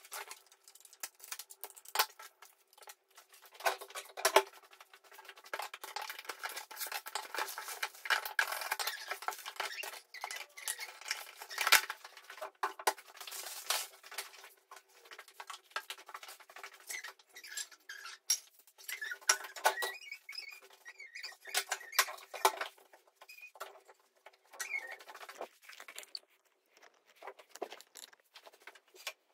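Bubble wrap and a plastic bag crinkling and rustling as they are handled and unwrapped, with many small clicks and knocks of the calendar's little blocks being picked up and set down.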